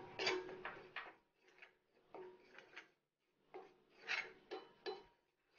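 Steel spatula scraping and stirring dry coriander powder around an iron kadai while it dry-roasts: a scattered series of faint, short scrapes and light clinks.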